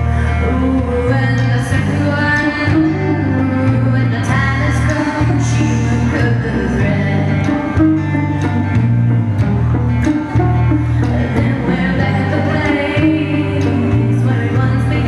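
Live band playing a song with a woman singing lead, over acoustic guitar, cello, electric bass and drum kit. A strong bass line moves to a new note about once a second under steady drum hits.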